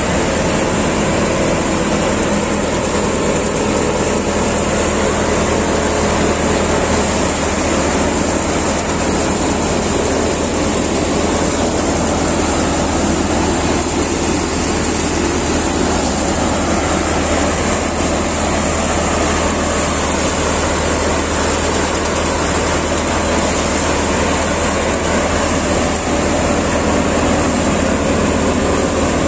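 Prachi paddy thresher running steadily under load as paddy is fed in, a continuous mechanical drone with a constant low engine hum from the tractor driving it.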